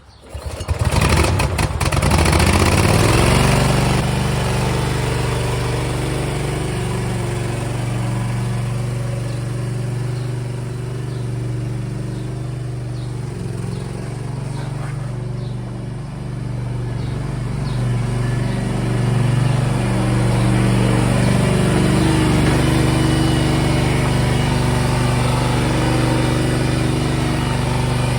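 Small Briggs & Stratton Vanguard engine on a mini skid steer starting up about a second in, then running steadily with its speed rising and falling a little as the machine is turned around.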